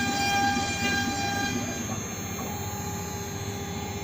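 Axiom AR8 CNC wood router running a cut, its spindle giving a steady whine over a rumbling, chattering noise; the pitch of the whine shifts about two seconds in.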